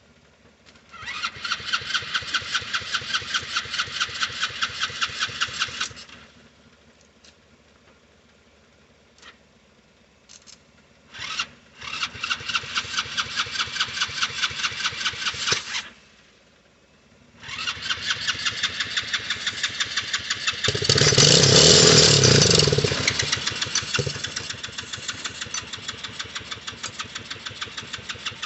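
Small 110cc ATV engine cranked on its electric starter in three runs, with even chugging pulses about four a second and short clicks between runs. During the third run a louder burst lasts about two seconds before it falls back to plain cranking. The engine won't start, which the owner puts down to a dirty carburetor.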